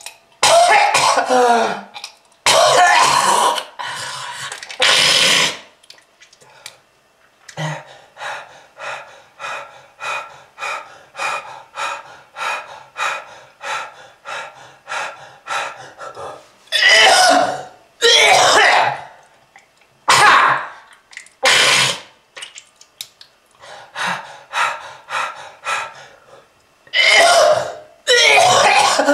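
A person coughing hard and repeatedly: long harsh coughing fits, with a run of short hacking coughs about two a second in the middle. It is a heavy smoker's cough.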